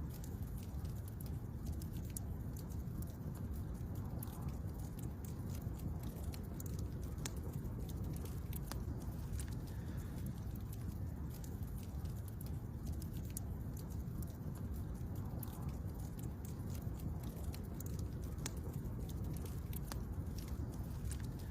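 Wood campfire burning, a steady low rumble of flames with frequent sharp crackles and pops.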